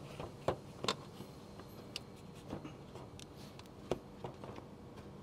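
Light, irregular clicks and taps of small screws and tools being handled and fitted by hand, over a faint steady hum.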